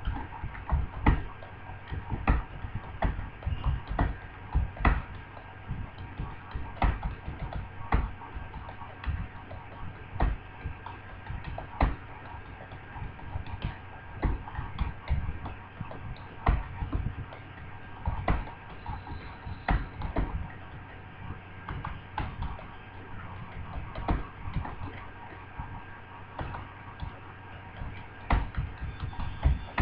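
Computer keyboard typing at a steady touch-typing pace: rapid, irregular keystroke clicks, several a second, with the odd louder key press, over a faint steady electrical hum.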